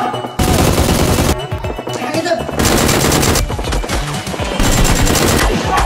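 Bursts of automatic gunfire sound effects: three rapid-fire bursts of about a second each, near the start, the middle and near the end, over background music.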